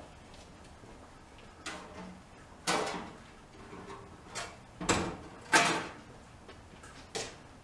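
Several sharp clunks and knocks at irregular intervals, about six in all, the loudest a little past halfway.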